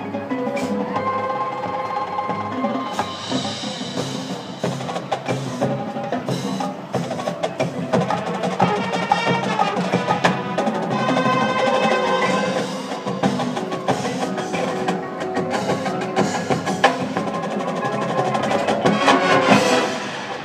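High school marching band playing its field show, with percussion prominent: the front ensemble's mallet instruments and drums over the winds. The music falls away abruptly near the end.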